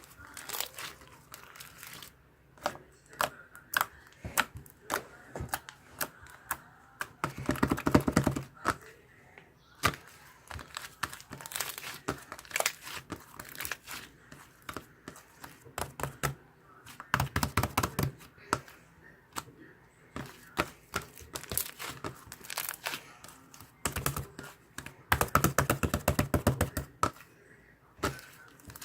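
Close-up crinkling and tearing of paper or plastic, with many sharp clicks and three short stretches of fast rattling.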